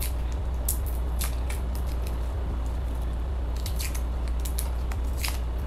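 Small kitchen knife scraping and peeling garlic cloves by hand: irregular short, dry scratches and clicks, over a steady low hum.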